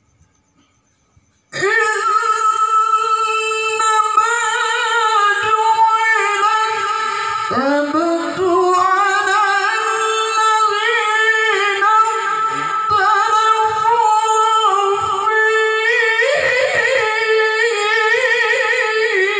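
A male qari's melodic Quran recitation (tilawah) through a microphone, starting about a second and a half in. It moves in long, high held notes with wavering ornaments, with one rising swoop near the middle.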